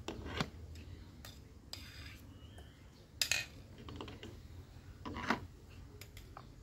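A metal spoon clinking against a ceramic bowl, with a plastic funnel tapping on plastic bottles, as egg mixture is spooned from the bowl into the bottles. Scattered single clinks and taps, the loudest about three seconds in and again about five seconds in.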